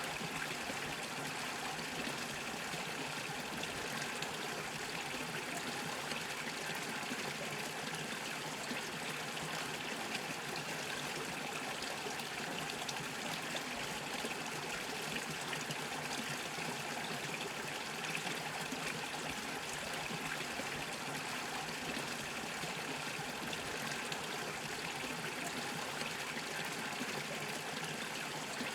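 Small brook bubbling and trickling steadily over stones, an even, unchanging rush of running water.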